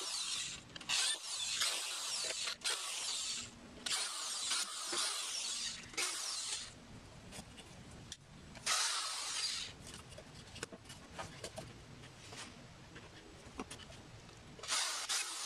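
Power drill driving wood screws into 2x4 supports and 3/4-inch MDF in repeated bursts of a second or two, with short stops between screws and a longer lull in the second half before it runs again near the end.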